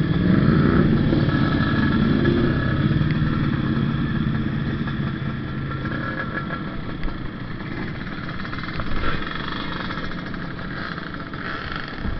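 Kawasaki Ninja RR's single-cylinder two-stroke engine revving up briefly at the start, then idling with a steady note for several seconds before it fades into the mixed hum of other motorcycles.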